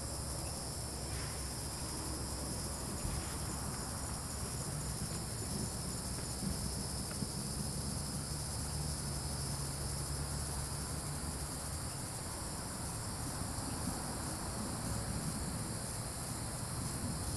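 Steady chorus of evening insects, a continuous high shrill drone with a faint fine pulse, over a low steady rumble.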